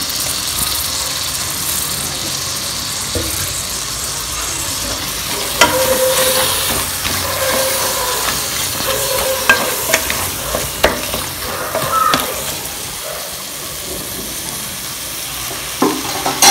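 Onions, tomatoes and spice masala sizzling in oil in a pressure cooker. From about five and a half seconds in to about twelve seconds, a spatula scrapes and knocks against the pan as the mixture is stirred.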